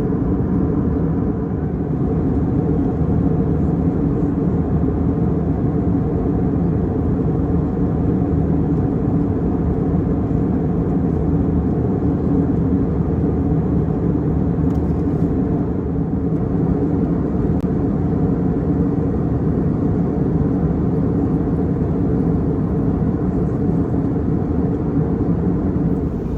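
Steady drone of an Airbus A320 heard inside the passenger cabin: engine and airflow noise with a low rumble and a few steady hum tones, unchanging throughout.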